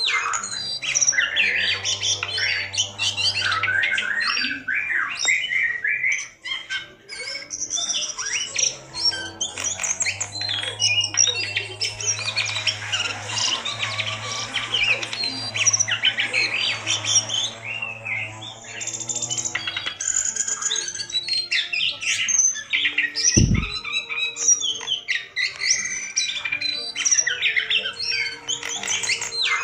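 A jongkangan, a bulbul kept as a songbird, singing without pause: a dense stream of loud chattering whistles and squawky calls, as used to rouse other jongkangan to sing. A single low thump comes about two-thirds of the way through.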